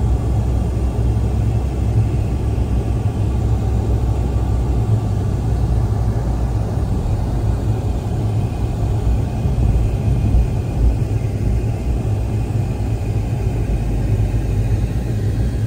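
Steady low rumble of a car driving, engine and tyre road noise heard from inside the cabin.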